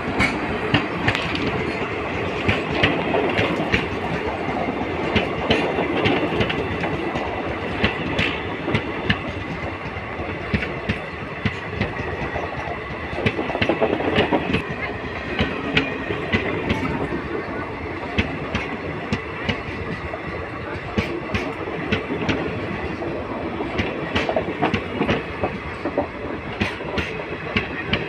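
Kaling Utkal Express passenger train running on the track: a steady rolling rumble with many sharp clicks of the wheels going over rail joints.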